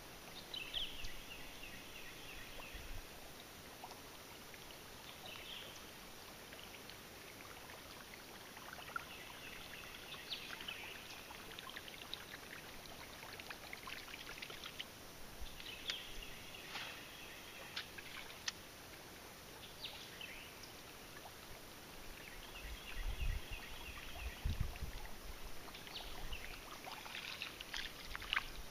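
Waterside outdoor ambience: a high trilling animal call repeats every few seconds, with scattered light ticks and a few low rumbles near the end.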